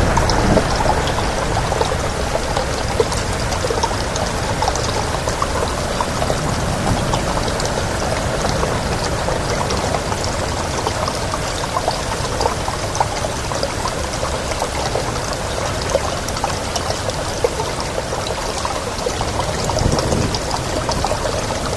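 Steady rain, many separate drops ticking over an even hiss of running water. A low rumble swells briefly near the end.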